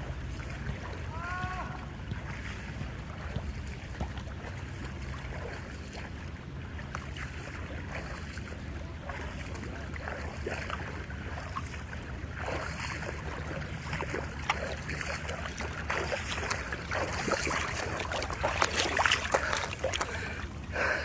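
A swimmer's arm strokes splashing in pool water, faint at first and growing louder and more frequent over the last several seconds as the swimmer comes near, over a steady low rumble.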